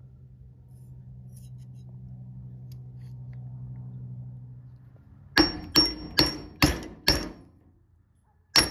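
Hammer blows on metal: five quick ringing strikes about half a second apart, then one more near the end, driving at the tip tube of an old Weller soldering gun's transformer clamped in a vise. The tube is stuck tight and does not come out. A steady low hum comes before the blows.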